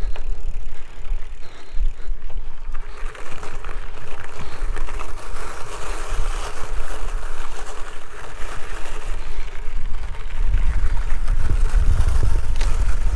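Wind buffeting the microphone on a moving gravel bike, over the hiss of its tyres rolling on a gravel road. The wind rumble gets heavier about ten seconds in.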